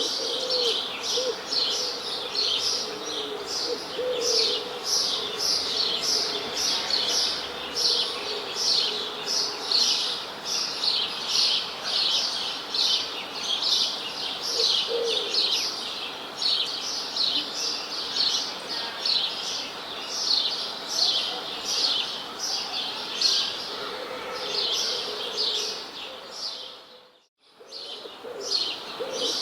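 Many small birds chirping continuously in quick, high, repeated chirps, with a few short lower calls now and then. About 27 seconds in, the sound fades out briefly and comes straight back.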